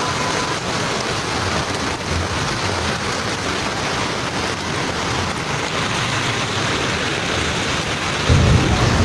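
Heavy rain pouring down, a steady dense hiss. A deep low rumble comes in near the end.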